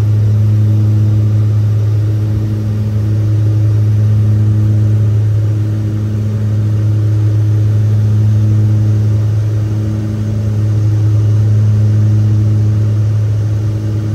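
The Dornier 228's twin Garrett TPE331 turboprop engines and propellers in cruise, heard from inside the cabin as a loud, steady low drone. Its loudness swells and fades slowly every few seconds.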